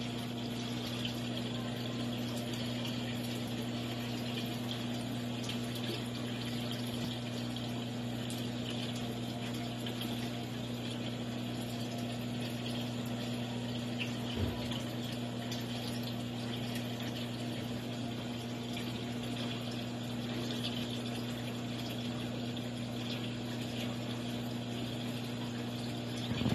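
Aquarium pump running with a steady low hum over the continuous rush and trickle of moving water.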